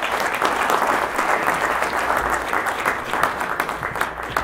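An audience applauding, thinning out to a few scattered claps near the end.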